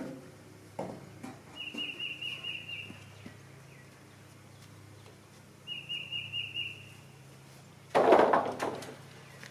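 A songbird calls twice, each call a quick run of about six high chirps. About eight seconds in, a long wooden board clatters down onto the wooden sawhorses, the loudest sound.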